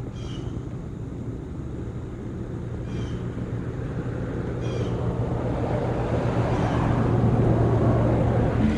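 A vehicle approaching, its noise swelling steadily over several seconds, with a few short high chirps.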